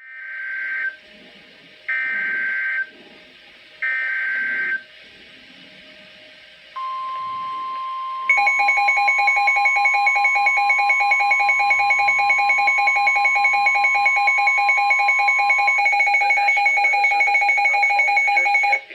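NOAA Weather Radio Emergency Alert System broadcast. It opens with three one-second bursts of the SAME digital header, then the steady 1050 Hz warning alarm tone starts about seven seconds in. From about eight seconds a louder, rapidly pulsing electronic alarm beep joins it, and the pulsing beep runs on after the steady tone stops near the end.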